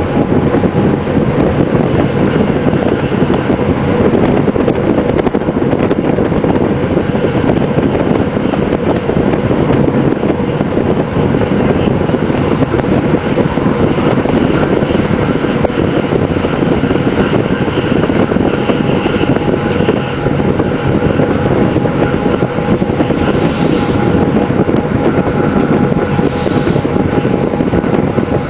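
DB class 628 diesel railcar running at speed: a steady drone of its diesel engine with a held hum of several tones, over continuous wheel and rail noise.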